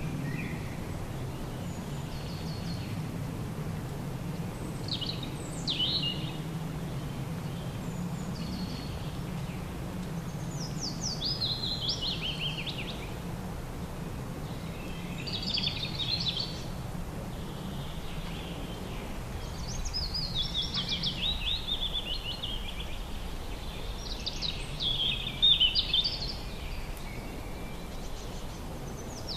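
Birds chirping in short phrases of quick, high, falling notes every few seconds, the loudest about 25 seconds in, over a steady low rumble.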